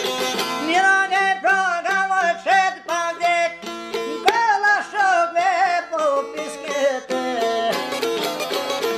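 Two Albanian plucked lutes, a çifteli and a larger round-bodied lute, playing a folk tune together. For most of the time a high melody slides and wavers in pitch over lighter plucking, and the full, busy plucking returns near the end.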